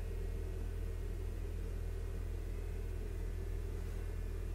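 Steady low background hum with no other sound.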